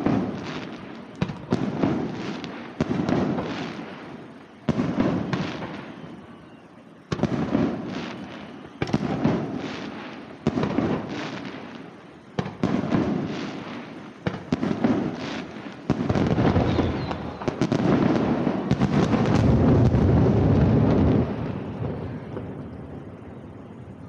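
Aerial firework shells bursting, each boom followed by a long rolling echo, roughly one every second. Near the end a dense volley of bursts runs together for several seconds, then dies away.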